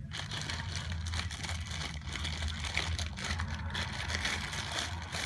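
Plastic packaging crinkling and rustling as a slime container is unwrapped, a dense crackly rustle that stops near the end, over a steady low hum.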